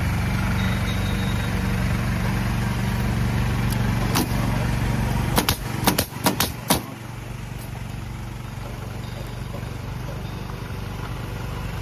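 An engine running steadily, with one sharp knock about four seconds in and a quick cluster of sharp knocks about halfway through, after which the engine sound is lower.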